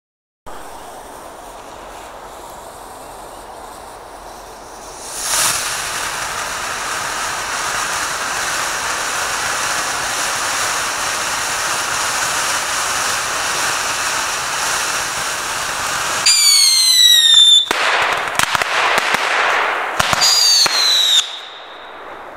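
Old 'All in One' ground fountain firework: a quiet hiss for the first few seconds, then the fountain catches with a surge and sprays sparks with a steady loud hiss. Near the end two whistles sound, each falling slightly in pitch, with crackling between them, and then the spray drops back to a quieter hiss.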